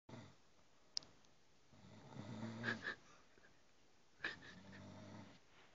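Faint snoring: two long, low snores about two seconds apart, with a sharp click about a second in.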